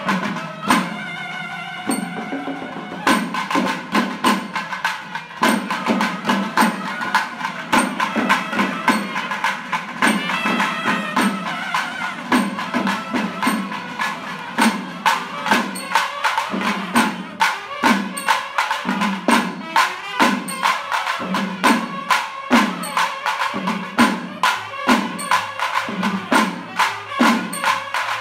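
Festival drum-and-pipe ensemble. Long wind pipes play a melody over rapid stick drumming in the first few seconds and again around ten seconds in. After that, barrel drums beaten with sticks carry on with a steady heavy stroke about once a second over quicker strokes.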